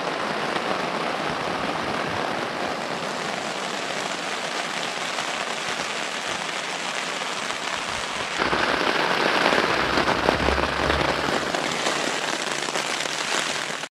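Heavy rain on a tent's flysheet, heard from inside the tent as a dense, steady patter and hiss. It gets louder about eight seconds in.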